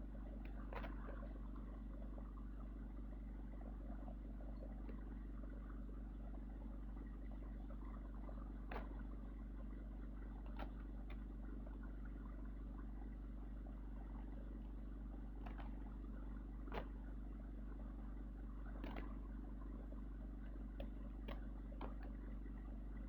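Steady low drone of a vehicle running, with light clicks and knocks scattered through it.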